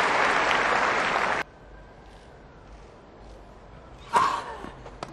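Crowd applause on the grass court cuts off abruptly about a second and a half in. Quiet court ambience follows, then near the end a single sharp racket strike on a tennis ball, with fainter knocks after it.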